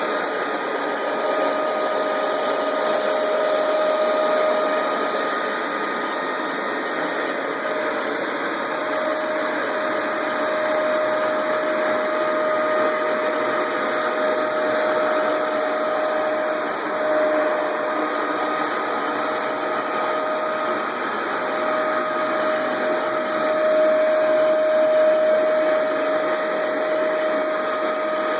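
Hoover Max Extract 77 carpet deep cleaner running steadily, its motor giving a constant whine over a hum as it works the carpet.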